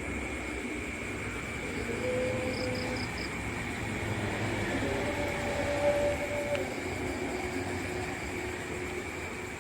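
Eerie horror-style night ambience: a steady low rumble and hiss under a constant high whine, with long held drone tones and a brief run of four high pips early on.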